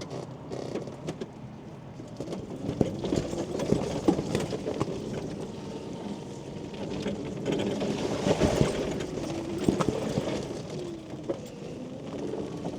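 Electric mobility scooter driving through rain: many sharp raindrop ticks over a steady hiss, with the motor's low whine rising in pitch in the second half as it speeds up.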